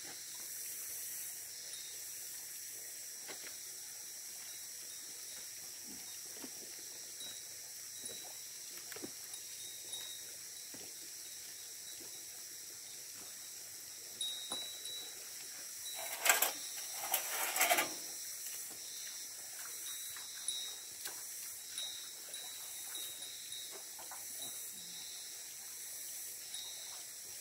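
Handling of a heavy hydraulic ram pump being shifted and lowered into a concrete pit: scattered small knocks, with a louder scraping clatter lasting about two seconds around two-thirds of the way through. A steady high hiss runs underneath.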